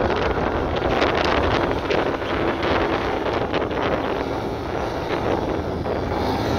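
Wind buffeting the microphone over the engine and pusher propeller of an ICON A5 amphibious plane taxiing on the water. Near the end the engine's pitch rises slightly.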